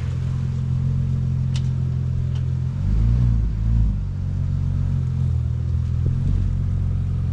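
Audi B5 S4's 2.7-litre twin-turbo V6 running at a steady low idle, with a brief swell in the engine note about three seconds in.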